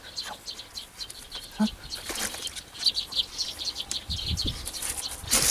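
Hands pressing and patting loose garden soil, soft rustles with a few dull pats near the end, while small birds chirp in the background.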